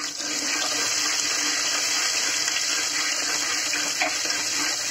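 Sliced onions and cumin seeds sizzling steadily in hot mustard oil in a pressure cooker, with a few light scrapes of the stirring spoon near the end.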